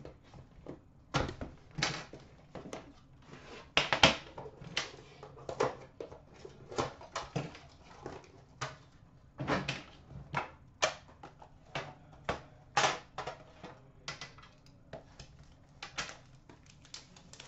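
Hands unpacking a hockey card box: cardboard sliding and rustling, and a metal card tin set down on a glass counter and opened. It comes as a long run of irregular clicks, taps and scrapes.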